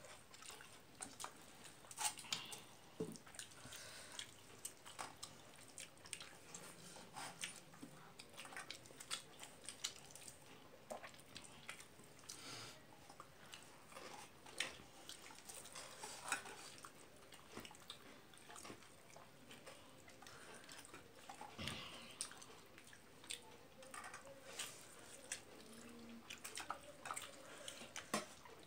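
Faint eating sounds: fingers mixing rice and egg curry on a plate and a person chewing, with scattered small irregular clicks and taps.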